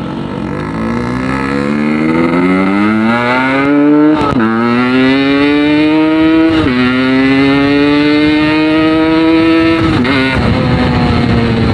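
Yamaha RX-King two-stroke single, bored oversize and fitted with a Packing Power PK2 aftermarket exhaust, accelerating hard through the gears. The pitch climbs, drops at gear changes about four and six and a half seconds in, and climbs again each time. It falls as the throttle closes about ten seconds in. The engine revs freely, up to around 10,000 rpm.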